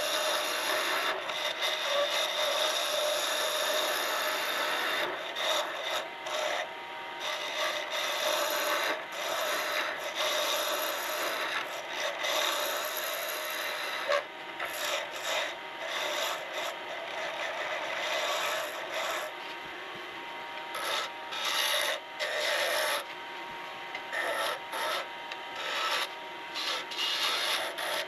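A hand-held turning tool cutting a spinning bolly gum pen blank on a Woodfast wood lathe: a steady scraping hiss of shavings coming off the wood, broken by short pauses as the tool is lifted and set again, more often in the second half.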